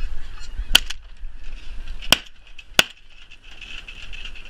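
Shotgun fired three times at a passing flock of snow geese: a shot about a second in, then two more close together about two and three seconds in. The flock's honking goes on underneath.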